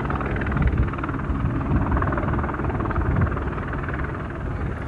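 Helicopter flying overhead, its rotor and engine running steadily.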